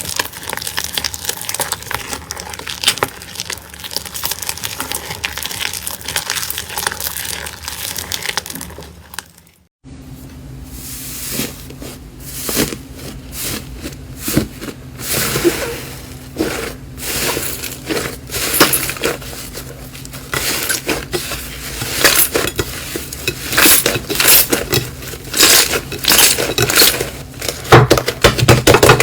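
Slime being squeezed and pressed by hand, giving dense crackling and crunching clicks. A brief cut about ten seconds in leads into a second, crunchier clip whose clicks grow louder toward the end.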